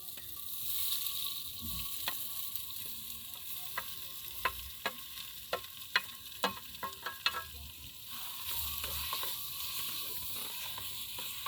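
Onions and tomatoes sizzling in hot coconut oil in a pot, with a utensil clicking and scraping against the pot as they are stirred; the clicks come thick and fast from about four to eight seconds in.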